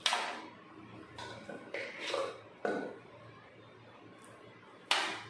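Steel spoon scraping and knocking against a stainless steel plate as cooked rice is spooned onto it: a sharp scrape at the start, a few softer scrapes and knocks in the middle, and another sharp scrape near the end.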